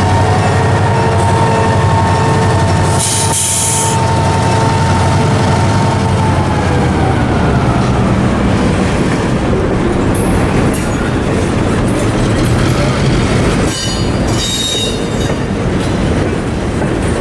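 EMD GP16 and GP10 diesel locomotives pulling a freight train slowly past, their engines rumbling under a steady whine that drops in pitch and fades about six seconds in as they go by. A brief hiss comes about three seconds in. Freight cars then roll past with wheel squeal and a few clanks near the end.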